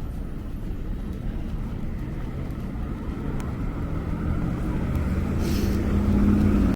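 Low, steady rumble of city traffic. From about two-thirds of the way in, a low hum builds as a vehicle approaches and grows louder, and it cuts off abruptly at the end.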